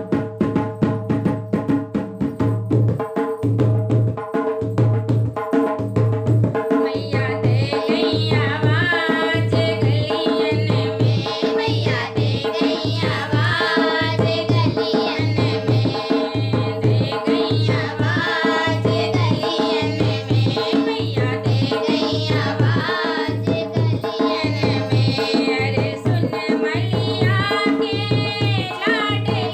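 Hindi devotional bhajan to the Mother Goddess: a steady hand-drum beat about once a second over a held drone, with singing coming in about seven seconds in.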